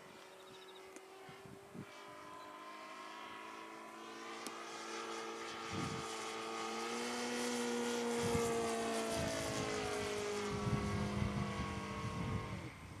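53cc four-stroke flat-four gasoline engine of a large-scale RC Space Walker model airplane in flight, with a steady propeller drone that grows louder to a peak past the middle, then eases off as its pitch falls slightly.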